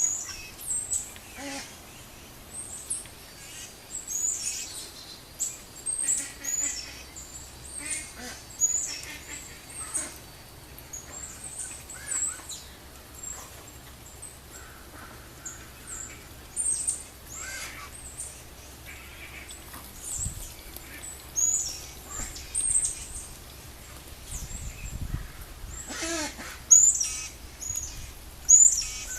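Mallard hen coughing, a short cough every few seconds; the owner likens it to the aspergillosis cough of her Pekins and hopes it is only something stuck in her throat. Small birds chirp high and often over it.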